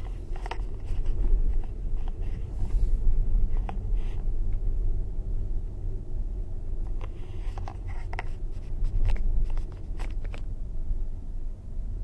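Low, steady rumble of tyre and road noise inside a Tesla Model S cabin on the move, with no engine note. Scattered small clicks and knocks come through it.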